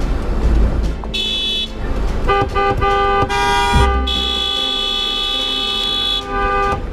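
Car horns honking. A higher-pitched horn sounds briefly about a second in, then a lower horn gives several quick toots. From about four seconds in, both are held in one long blast lasting two to three seconds.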